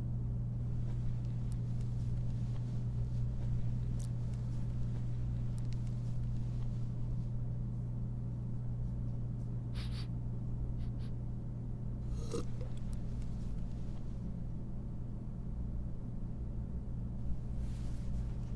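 Steady low hum of studio room tone with no talking, broken by a few faint, brief noises.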